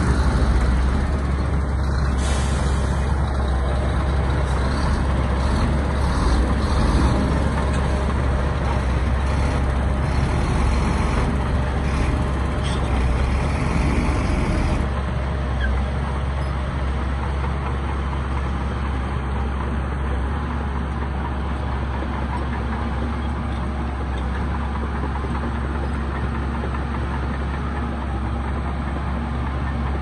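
Heavy diesel earthmoving machinery running steadily with a deep rumble. It drops slightly in loudness and loses some of its hiss about halfway through.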